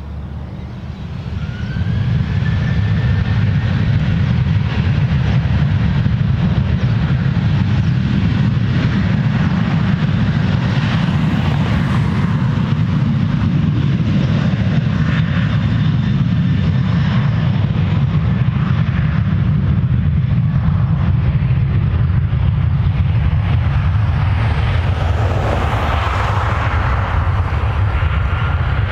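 Boeing 737-800's twin jet engines spooling up about a second and a half in, with a thin rising whine, then holding a loud, steady takeoff-power rumble as the airliner accelerates down the runway.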